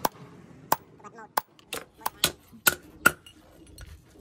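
Hammer striking a red-hot steel knife blade on a steel anvil during forging. There are about eight sharp metallic blows at an uneven pace over the first three seconds, then the hammering stops.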